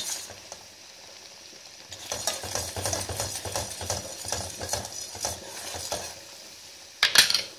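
A spoon stirring and scraping through a pot of thickening sugar-and-honey syrup as it boils down on high heat. A quick run of scrapes and taps starts about two seconds in, and a loud brief clatter against the pot comes near the end.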